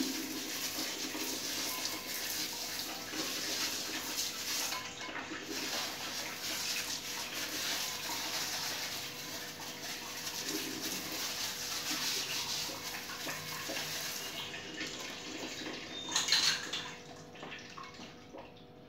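Water spraying from a handheld hose spray (health faucet) onto a plastic AC filter mesh over a washbasin: a steady hiss of spray and splashing water. A short louder rush about three seconds before the end, after which the spray stops.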